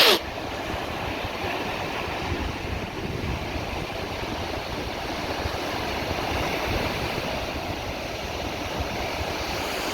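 Sea surf washing in steadily, with wind on the microphone. Right at the start there is one short, sharp sound that falls quickly in pitch.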